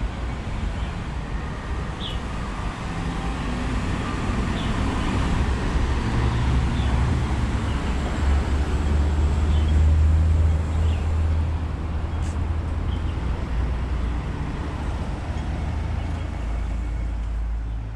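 Street traffic: road vehicles passing, with a low engine rumble that grows loudest about halfway through and then eases off. Faint short high chirps come now and then.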